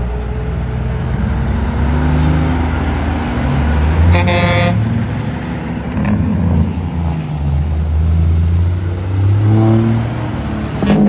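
Semi trucks' diesel engines running as they pass slowly at parade speed, with one short air-horn blast about four seconds in.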